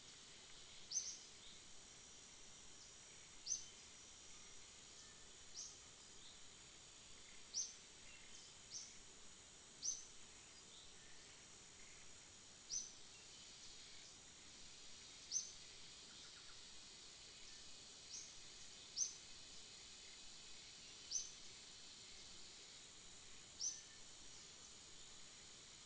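Short, high chirps repeating every one to three seconds, each brief and standing out clearly, over a steady faint hiss with a thin high whine.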